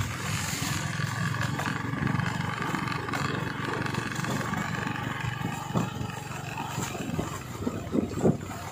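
Steady low rumble of wind buffeting the microphone on a moving vehicle, with a few stronger gusts near the end.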